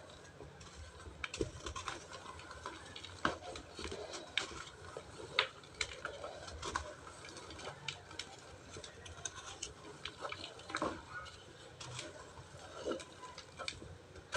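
Dry cement and ash chunks crumbling, giving irregular crunches and crackles, some sharper and louder than others.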